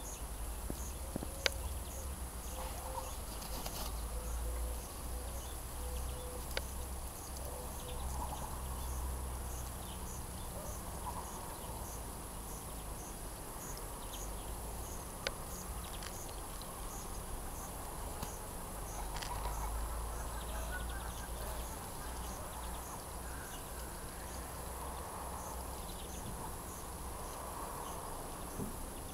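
Insects chirping in an even pulse of about two short high ticks a second over a steady high hiss, with a low rumble and a few faint clicks.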